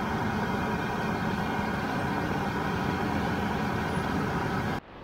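Steady busy-street noise, dominated by traffic and engines; it cuts off sharply near the end.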